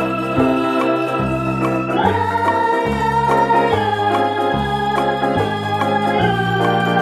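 Background music played on an electronic organ-like keyboard, with sustained chords over a stepping bass line.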